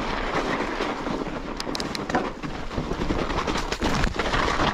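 Mountain bike riding down a trail in deep snow: a steady rushing noise from the tyres and wind, with scattered sharp clicks and rattles from the bike, a cluster of them about a second and a half in.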